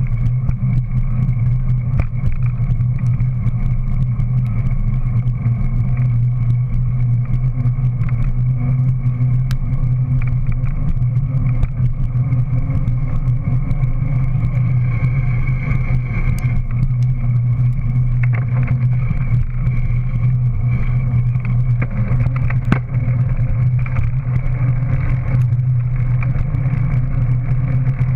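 Scott dual-suspension mountain bike's rear tyre rolling along a concrete path: a steady low hum of tyre and riding noise, with occasional short ticks.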